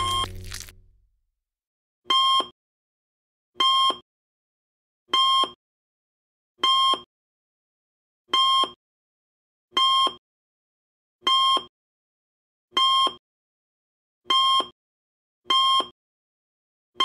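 Electronic beep of a cartoon patient heart monitor, repeating at a slow even pace, about one beep every second and a half, ten times. A louder sound dies away in the first second, before the beeps begin.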